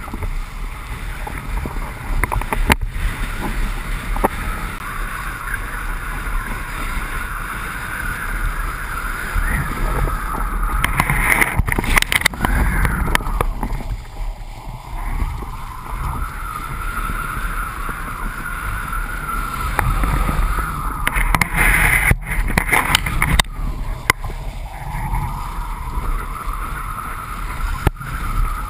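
Wind rushing over a pole-mounted action camera's microphone as a kiteboard planes across choppy water, with a whistle-like tone that wavers and dips. Twice, about a third and three-quarters of the way through, it grows rougher and louder as the board hits chop and throws spray.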